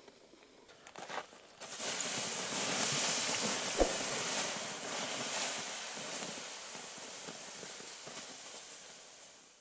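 Water poured onto the hot embers and ash of a campfire, hissing into steam as the fire is put out. The hiss starts suddenly about a second and a half in and slowly fades away.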